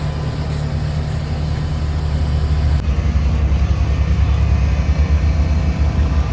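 Sawmill's engine running steadily with a low hum, growing a little louder about three seconds in.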